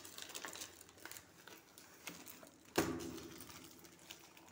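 Plastic-wrapped cardboard box being worked open by hand: crinkling wrap and small clicks of cardboard, with one sharp knock about three seconds in that rings briefly.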